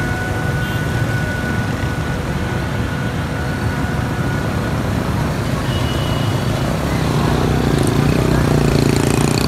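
Steady din of road traffic, the mixed running of many vehicle engines. From about seven seconds in, one vehicle's engine grows louder as it comes close.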